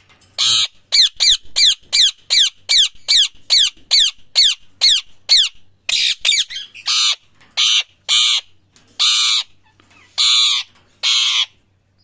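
Indian ringneck parakeet calling loudly: a quick run of short squawks that each fall sharply in pitch, about three a second, then from about six seconds in slower, longer and harsher screeches.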